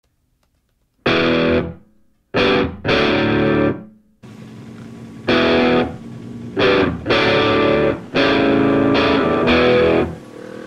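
Background rock music with distorted electric guitar, starting about a second in. Heavy chords are struck and held, then cut off short in a stop-start riff.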